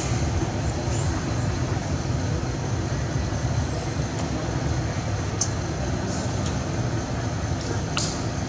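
Steady low rumbling background noise, with a thin steady high tone above it and a few faint high squeaks about a second in.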